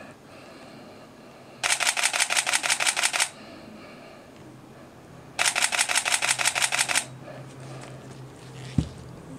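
Canon EOS DSLR body, lens removed, firing two bursts of continuous shooting. Each burst is about a second and a half of rapid, evenly spaced shutter-and-mirror clacks. A single sharp handling knock comes near the end.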